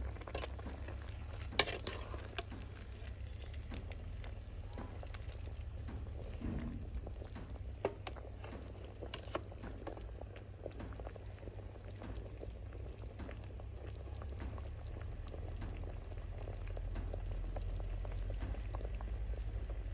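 Pot of chicken and young tamarind leaf soup boiling, with scattered pops and bubbles over a steady low rumble.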